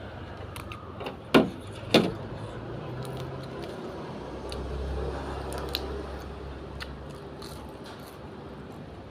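Eating sounds: two sharp clinks of a spoon or chopsticks against the bowl about a second and a half and two seconds in, with small clicks and chewing, and a low rumble in the middle.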